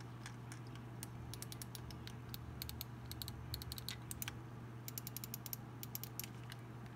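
Glorious Model O gaming mouse buttons clicking in irregular clusters of sharp clicks as the mouse is clicked and squeezed in the hand, with little creak from the lightweight honeycomb shell. A steady low hum runs underneath.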